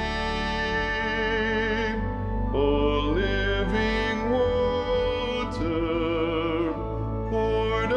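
A soprano voice singing a sustained hymn melody with vibrato over instrumental accompaniment, in D major.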